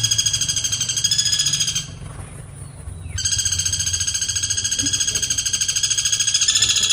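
Woodpecker calling in two long, rapid trills of evenly repeated clear, high notes: the first breaks off about two seconds in, and the second starts about a second later, stepping slightly up in pitch near its end.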